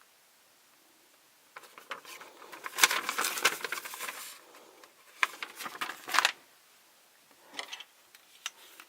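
Rustling and small clicks of toy pieces and packaging being handled, in two main stretches of a few seconds each with a couple of brief ones near the end.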